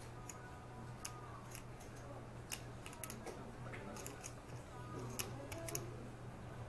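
Poker chips clicking as a player handles them on the table: sharp, irregular clicks, several in quick clusters. A steady low hum runs underneath.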